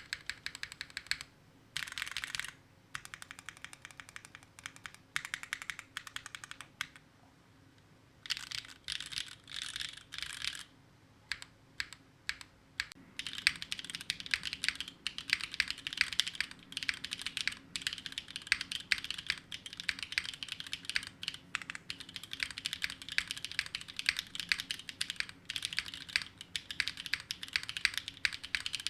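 Typing on a Neo60 Core mechanical keyboard with Gateron Sage linear switches. It begins with stock switches on a carbon fibre plate with GMK keycaps, typed in fast bursts with short pauses. About twelve seconds in, a second test setup takes over with steady, continuous typing.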